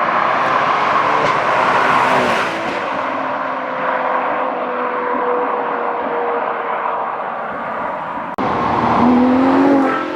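Ferrari Daytona SP3's naturally aspirated 6.5-litre V12 accelerating hard past the listener. Its exhaust note peaks about two seconds in, then holds a steadier, slowly falling pitch. About eight seconds in the sound cuts abruptly to another run with the engine revving up.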